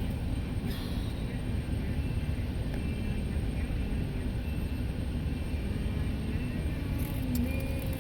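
Steady low engine rumble, even throughout, with a faint click or two.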